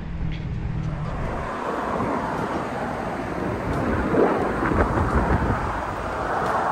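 Wind buffeting a microphone while riding an electric unicycle: a steady rushing noise that swells in a few gusts around the middle.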